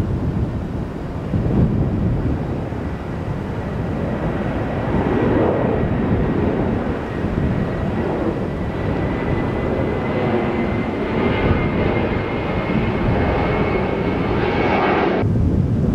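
Twin-engine Boeing 737-type jet climbing away on a go-around at high thrust: a steady jet engine roar with a thin whine. It grows sharper as the plane passes overhead and cuts off suddenly near the end.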